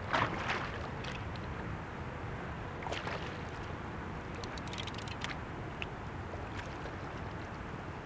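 Steady wind and water noise on an open boat, with a hooked blue catfish splashing at the surface just after the start and again about three seconds in. A quick run of sharp clicks comes near the middle.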